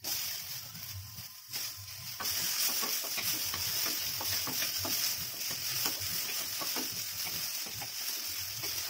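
Chopped tomato sizzling in hot mustard oil with onion in a brass kadhai, while a wooden spatula stirs and scrapes through it in many short strokes. The sizzle starts as the tomato goes in and grows louder about two seconds in.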